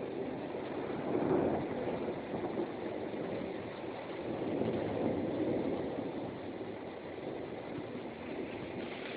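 Thunderstorm: a steady rush of rain and storm noise, swelling louder about a second in and again around the middle.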